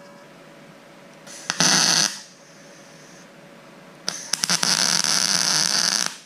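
Weldpro 155GD MIG welder's arc sizzling in two bursts: a short tack of under a second about one and a half seconds in, then a longer weld of about two seconds starting about four seconds in.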